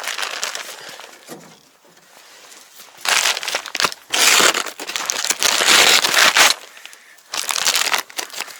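Fresh straw bedding rustling and crunching underfoot, soft at first and then in loud bursts from about three seconds in.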